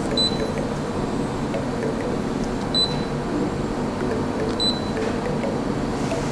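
Steady machine hum running evenly, with three short high-pitched beeps.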